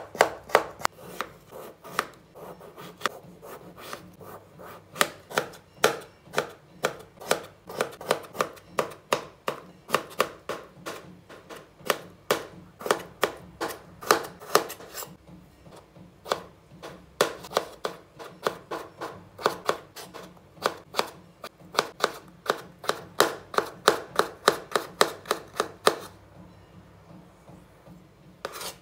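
Kitchen knife slicing a peeled potato into thin strips on a wooden cutting board: a steady run of sharp chops on the board, about two to four a second, with short pauses and a break of about two seconds near the end.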